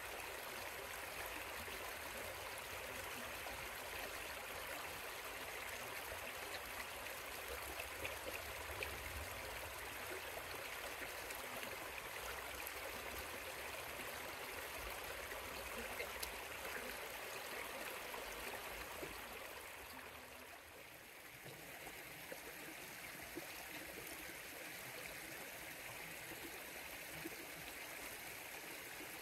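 A river flowing: a steady rush of running water, dipping briefly in level about two-thirds of the way through before returning.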